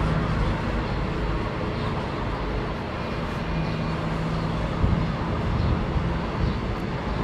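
Road traffic heard from above: a steady wash of cars and vans on the street, with a low engine hum that fades in and out.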